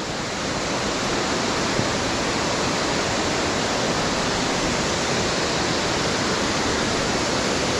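Waterfall and its falling water giving a steady, even roar.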